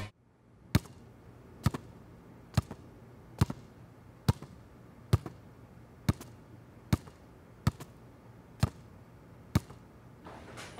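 A basketball dribbled slowly and steadily on a hard floor: about eleven bounces, roughly one a second, each with a short echo.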